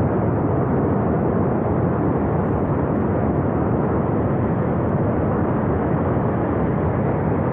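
Glacier flash flood of water and debris rushing down the river valley: a steady, loud, unbroken rushing noise.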